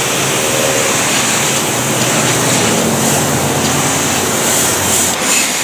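Car wash water spray hissing steadily and loudly as it washes down toy construction trucks.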